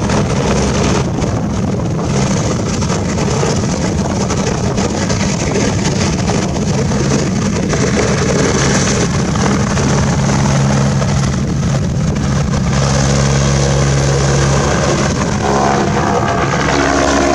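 RCMP helicopter taking off and climbing away: loud, steady rotor and turbine noise, its tone shifting in pitch near the end as it flies off.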